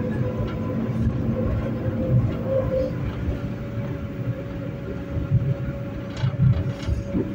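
71-911E City Star tram running on the rails: a low rumble with a steady electric whine from its traction drive, and a few sharp clicks about six seconds in.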